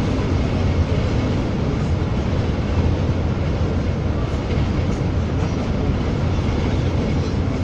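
Steady low rumble of a bus cruising at highway speed, heard inside the cabin: engine drone and tyre noise on the road.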